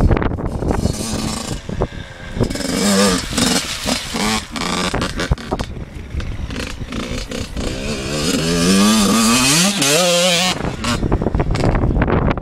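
Yamaha YZ85 two-stroke motocross engine revving hard, its pitch climbing in repeated rises and loudest about nine seconds in. Near the end it gives way to wind on the microphone.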